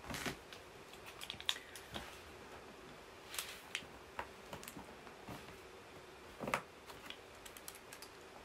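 Light scattered clicks and scrapes of a small blade cutting into a cardboard box to open it, with one louder knock about six and a half seconds in.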